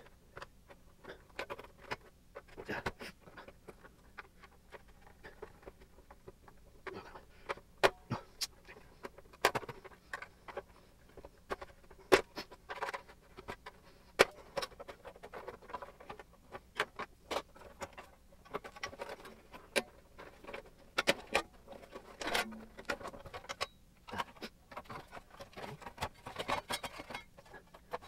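Hard plastic housing of an Airfree Onix 3000 air purifier being pried and worked apart by hand: a dense, irregular run of clicks, creaks and scrapes, with a few sharper snaps as the shell gives.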